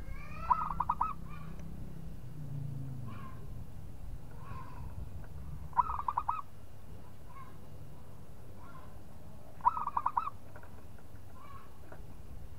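Zebra dove (local perkutut) singing: three song phrases about four seconds apart, each a quick run of short staccato coo notes, with softer single notes in between.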